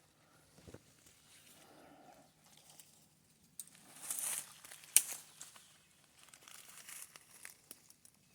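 Rustling and crackling of dry brush and leaves as someone moves through undergrowth, with one sharp snap about five seconds in.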